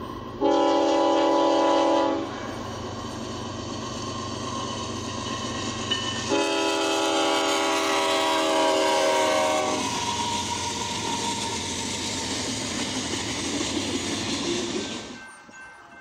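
Locomotive's multi-chime air horn sounding a chord in two blasts, one of about two seconds and a longer one of about three and a half seconds, a warning for a grade crossing. Between and after the blasts the train rumbles past with some clickety-clack, and the noise drops off abruptly near the end.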